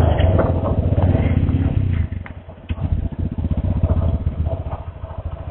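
Motorcycle engine running just after being started as the bike sets off, with an even pulsing beat. It eases off briefly about two seconds in, then picks up again.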